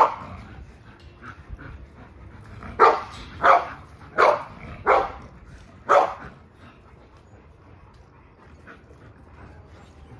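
A dog barking: one bark at the start, then a run of five barks about two-thirds of a second apart a few seconds in, after which the barking stops.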